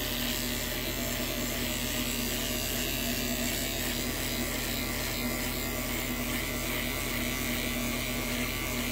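Handheld electric beard trimmer running steadily as it cuts beard hair, a continuous even buzz.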